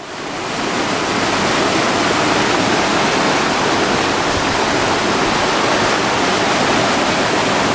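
Rushing water of a fast mountain stream tumbling over rocks and a small white-water drop, a loud, steady rush that fades in over about the first second.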